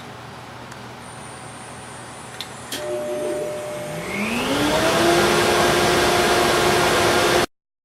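CNC router's spindle motor switching on with a click and whining up to full speed over about a second, then running at a steady high pitch with a rushing noise that a dust-collection vacuum would make. It cuts off suddenly near the end.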